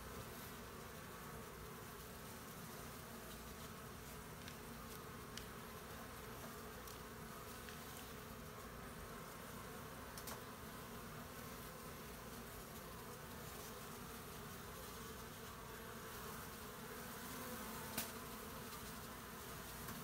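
Honey bees buzzing steadily in a mass, with a few faint clicks, the sharpest near the end.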